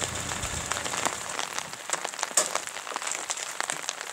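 Rain falling on a wet road and a parked car, an even hiss with many small drop ticks. A small hatchback's engine is running low at first and stops about a second and a half in.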